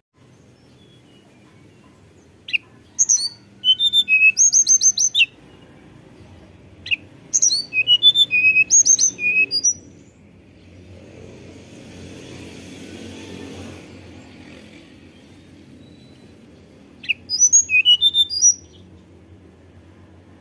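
Hill blue flycatcher singing three bursts of high, clear, flute-like whistled notes in quick runs that rise and fall, with pauses of a few seconds between phrases.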